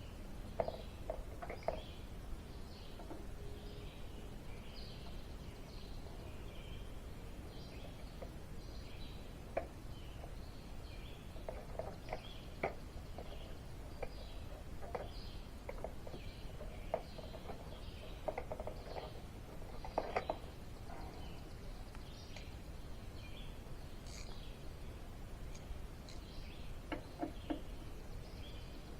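Small birds chirping over a steady low background rumble, with scattered light clinks and knocks of metal hand tools as sockets are picked out and tried.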